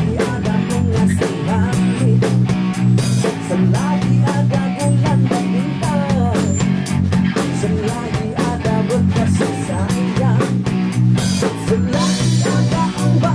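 A rock band playing: a man singing into a microphone over electric guitar and a drum kit keeping a steady beat.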